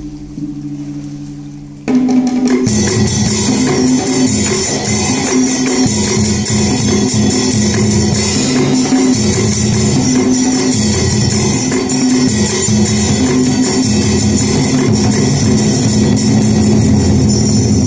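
Traditional Vietnamese water puppet theatre music. A low ringing tone fades out, then about two seconds in a loud passage of drums and rapidly clashing cymbals breaks in over a short repeating melody.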